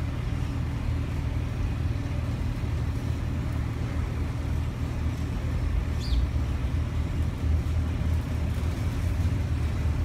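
Steady low rumble of vehicle traffic, with a single short high chirp from a small bird about six seconds in.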